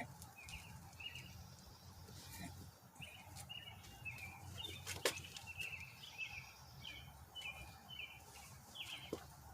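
A bird chirping over and over in short high notes, about two a second, with a single sharp click about five seconds in.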